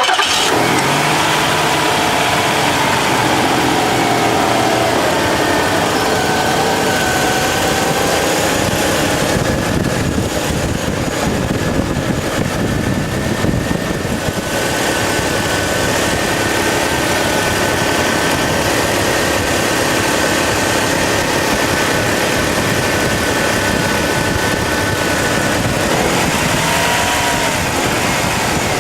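Nissan F31 Leopard's VG-series twin-cam turbo V6 starting up and then idling steadily, with a whine running through it. A rattling noise (ガラガラ, カラカラ) comes from the belt-driven pulleys at the front of the engine; the owner puts it down to a worn idler/adjuster pulley bearing and replaced only the bearing.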